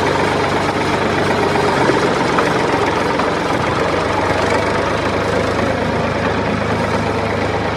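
A vehicle engine idling steadily, a low, even running with no revving or stops.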